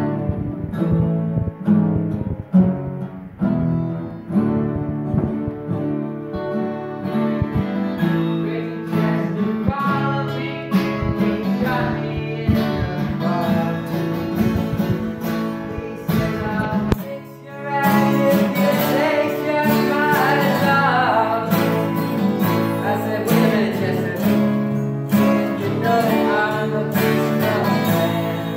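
Three acoustic guitars, one of them a twelve-string, played together: strummed chords with picked lines over them. The playing drops away briefly about 17 seconds in, then comes back fuller with a wavering melody on top.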